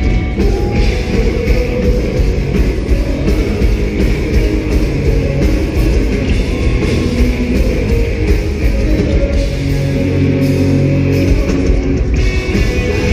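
Live pop-punk band playing loud, with electric guitars to the fore, heard through the concert PA.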